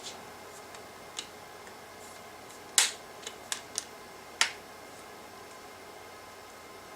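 Hard plastic clicks and snaps from an Otterbox case as an iPad Mini 4 is pressed into it: about six sharp clicks, the loudest near three seconds in and another strong one a little after four seconds.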